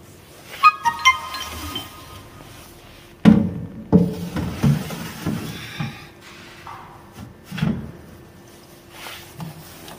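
Plastic reagent bottles knocking and thudding as they are set into a stainless-steel instrument cabinet: several separate knocks, the loudest a little over three seconds in. About a second in there is a short run of bell-like chime notes.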